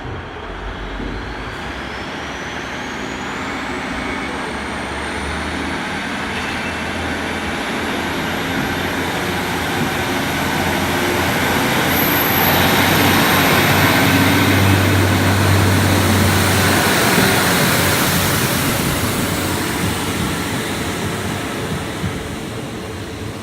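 Class 150 Sprinter diesel multiple unit pulling away and accelerating, its underfloor diesel engines running under load with a high whine that rises steadily in pitch. The engine sound builds to its loudest about two-thirds of the way through as the unit passes, then fades as it leaves.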